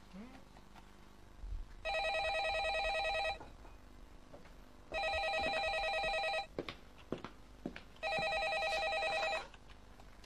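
Corded landline telephone ringing three times, each ring a trilling tone about a second and a half long, with pauses of about the same length between rings.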